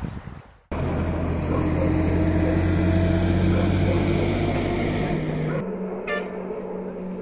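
A car engine running steadily. It starts abruptly, and about five and a half seconds in its pitch shifts and it becomes quieter.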